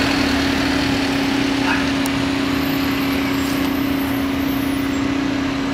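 Flatbed tow truck's engine running as it drives off, a steady hum with one constant tone over street noise.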